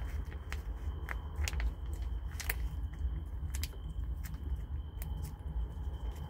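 Tabby kitten eating chunks of wet cat food from a pouch held in a hand: wet chewing clicks, irregular, about two a second.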